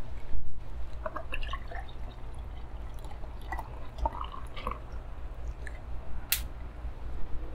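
Beer poured from a glass bottle into a pint glass, gurgling and fizzing as the foam builds, with a sharp clink about six seconds in.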